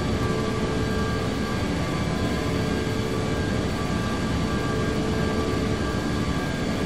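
Steady jet airliner noise on final approach: a constant rush of engine and airflow noise with several steady whining tones held at one pitch.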